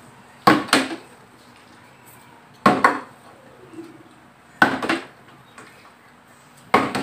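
Partly filled plastic water bottle being flipped and landing on a tabletop: four sharp knocks about two seconds apart, each followed by a quick second knock.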